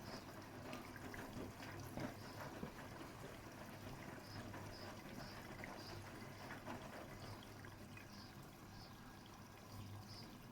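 Bosch WAT286V0 front-loading washing machine running a wash: water sloshing and trickling in the turning drum over a steady low hum, with scattered soft knocks.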